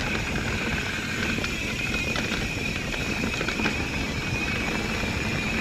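Mountain bike rolling along a dirt trail: steady rumble of tyres and wind on the helmet camera, with scattered clicks and rattles from the bike over rough ground.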